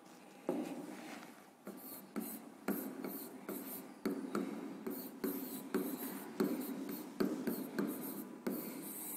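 Stylus writing on the glass of an interactive flat-panel display: quiet, irregular taps and short scraping strokes, one or two a second, as letters are written.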